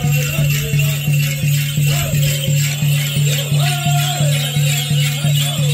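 Traditional dance song: a low drum beaten steadily at about three beats a second under voices chanting, with the jingle and shake of the dancers' bells and rattles.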